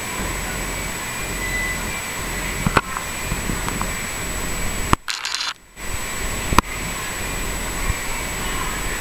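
Steady rushing background noise with a faint steady high whine, broken by two sharp clicks, one about three seconds in and one about six and a half seconds in, and a brief dropout just after five seconds.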